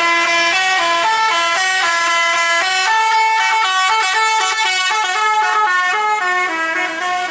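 Basuri telolet bus horn, a multi-tone musical horn on a bus, playing a continuous tune of clear notes that change a few times a second.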